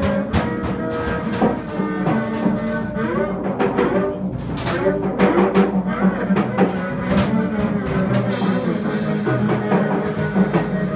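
Free-improvised jazz from saxophone, double bass and drum kit: busy, irregular drum and cymbal strikes under wavering saxophone lines, with a steady low note held throughout.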